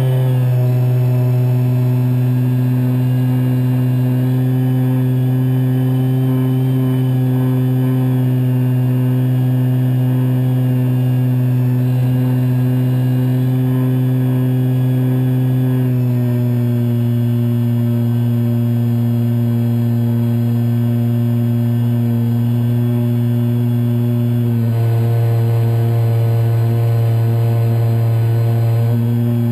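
Brushless electric motor and 11x10 propeller of a Kyosho Spitfire 50 EP RC plane in flight, heard close up from inside the cockpit: a steady, loud buzzing whine. It drops slightly in pitch about 16 seconds in, and its tone gets brighter and fuller about 25 seconds in as the throttle changes.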